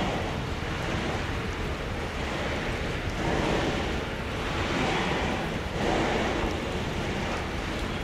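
Container wagons of an intermodal freight train rolling past: a steady rush and rumble of steel wheels on rail that swells and eases every second or so as the wagons go by.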